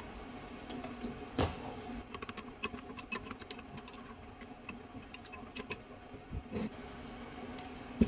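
Spoons clicking and scraping against a ceramic bowl as a chili-paste sauce is stirred, with a louder knock about a second and a half in, over a steady low hum.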